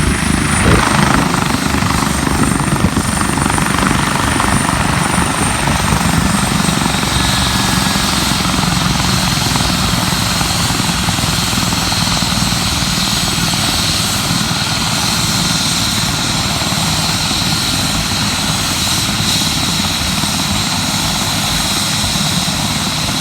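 Medical air-ambulance helicopter running steadily close by: rotor noise with a high turbine whine that dips slightly in the first few seconds, and a second, lower whine joining about seven seconds in.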